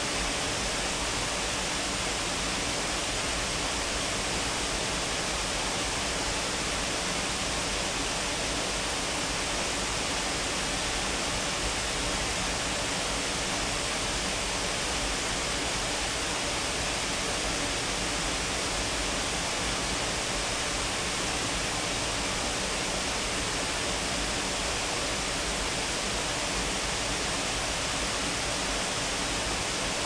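Shiraito Falls' many thin cascades and the shallow rocky stream below them rushing: a steady, unbroken water sound with no change in level.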